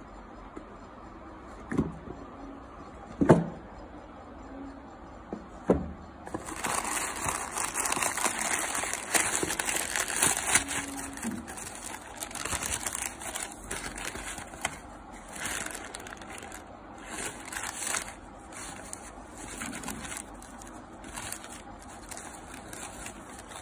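A few sharp knocks as a rigid cardboard gift box is handled and opened. Then a long stretch of tissue paper rustling and crinkling as hands dig through it, loudest early on and thinning out towards the end.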